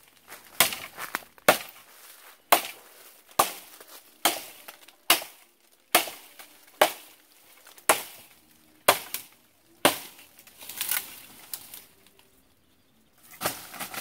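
A machete (corvo) chopping at a wooden branch to cut a pole, about a dozen sharp strikes roughly one a second, stopping about ten seconds in. Near the end there is rustling in dry leaf litter.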